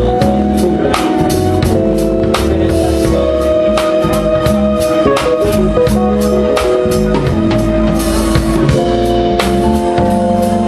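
A live band playing: drum kit keeping a steady beat under a bass line and held keyboard chords.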